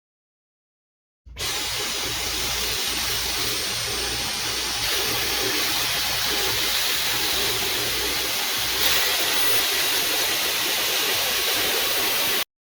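Dyson V11 Pro cordless stick vacuum running: a steady rushing hiss of airflow with a faint high whine, starting abruptly about a second in and cutting off abruptly near the end.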